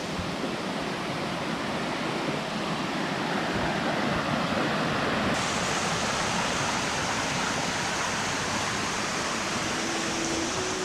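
A rainforest creek swollen by recent rain, its water rushing over rocks in a steady, full rush.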